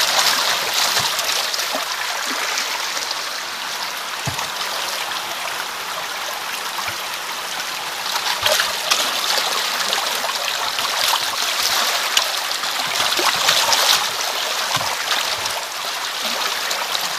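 Water of a small stream rushing and splashing around a plastic tub held in the current as the garden slugs are washed out of it. The rushing is steady, with a few small knocks and slightly louder splashing about halfway through and again near the end.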